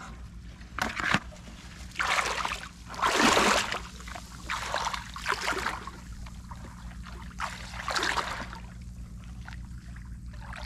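Water sloshing and swishing as a person wades through thigh-deep muddy water, in a run of separate swishes about a second apart, the loudest a few seconds in.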